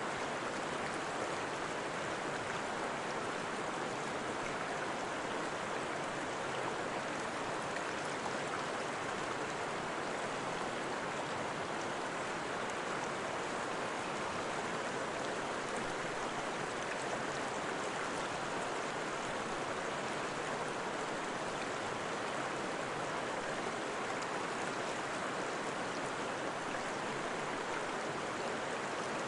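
Running water: a steady, even rush like a flowing stream, with no breaks or changes in level.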